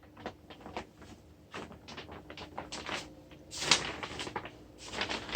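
Irregular light clicks, knocks and rustling of someone moving about on foot, with a slightly louder scuffing stretch a little past the middle.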